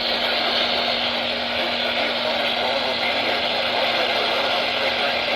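Steady radio static hiss with a faint low hum underneath, from a receiver tuned to weather-alert broadcasts while no voice comes through.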